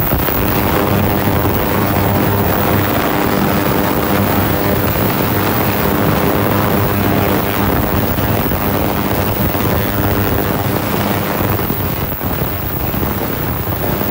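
VEVOR 10-litre, 40 kHz ultrasonic cleaner running with its tank full of water, making a steady, very loud buzzing drone.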